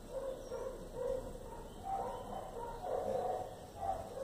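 Repeated short animal yips, a few each second at irregular spacing, thickest in the middle of the stretch.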